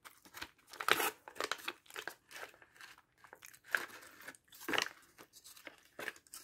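Plastic MRE ration packaging crinkling and being torn open, in irregular crackles and rustles, strongest about a second in and again near the end.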